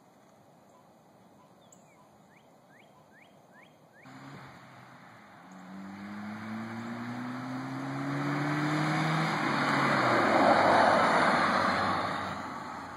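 A 1994 Saturn SL1's 1.9-litre single-cam four-cylinder engine coming into hearing about four seconds in and driving up and past, the engine note rising as it accelerates. Tyre and engine noise swell as it passes close, loudest about eleven seconds in, then fade away.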